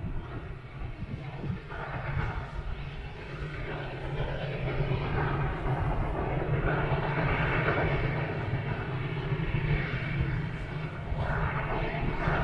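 Distant steam locomotive working up the grade toward the line. Its exhaust and running noise come across as a steady rushing rumble that grows louder about four seconds in as the train draws nearer.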